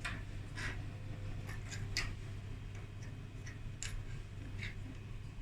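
Light, irregularly spaced clicks and taps, about eight in all, from small hard parts being handled, over a steady low hum.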